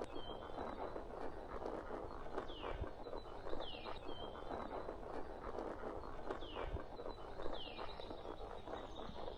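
A horse walking on a forest trail, its hoofbeats heard as dull thuds under the rider. A bird repeats a short falling whistle in pairs, about every four seconds.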